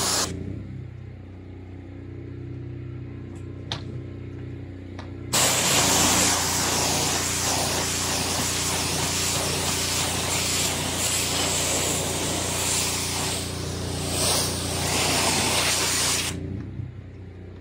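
Water spraying from a hose-fed wand onto solar panels. The spray stops right at the start and comes back about five seconds in, runs for about eleven seconds, then stops again near the end. A steady motor hum with a few faint clicks runs underneath throughout.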